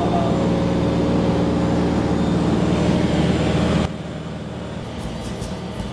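Light aircraft's piston engine and propeller droning steadily, heard inside the cabin. About four seconds in, the sound cuts abruptly to a quieter drone, and near the end a regular beat begins.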